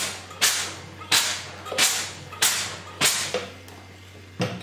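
Steam iron held on a pine board, letting out short hissing bursts of steam about every two-thirds of a second, five in a row, to lift a dent out of the wood. A single thud follows near the end.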